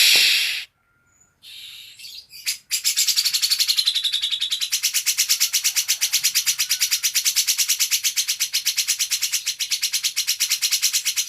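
Cucak ijo (green leafbird) singing harsh cucak jenggot-style 'tembakan' bursts. A loud short call and a few brief notes come first. About three seconds in, a long, fast, even rattle of repeated notes starts and runs on to the end.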